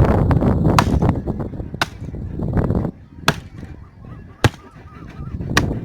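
Axe chopping into a tree: five sharp strikes, roughly one every second or so.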